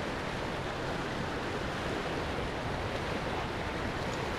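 Fast mountain river rushing over rocks: a steady, unbroken wash of water.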